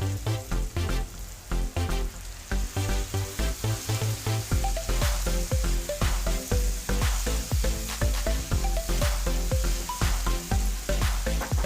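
Chopped vegetables sizzling as they fry in hot oil in a pan. Background music with a steady beat and a simple melody plays over it.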